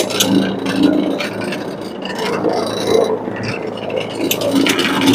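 Carpet-cleaning extraction wand worked over carpet, its suction hissing and scraping in uneven strokes over the steady hum of the cleaning machine.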